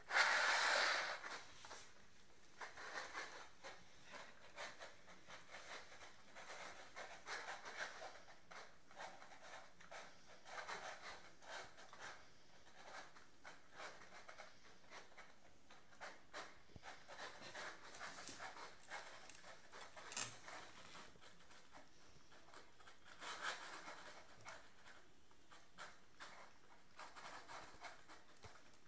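Golden retriever puppies eating from plastic bowls: faint, irregular wet chewing, smacking and lapping clicks. A short, louder burst of noise comes right at the start.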